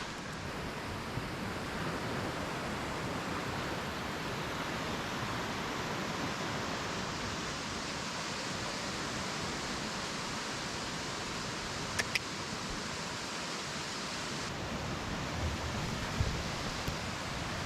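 Steady rushing noise of water, with two brief clicks about twelve seconds in.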